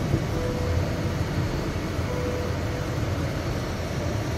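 Steady road and engine noise inside a moving car's cabin, mostly a low rumble.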